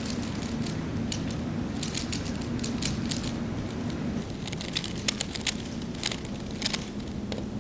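Scattered light clicks and crackles, irregular and thickest in the second half, over a steady low hum.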